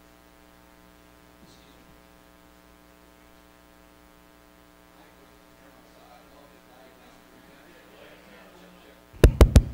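Steady electrical mains hum on the sound system, then near the end a few quick, loud taps on a handheld microphone as it is checked.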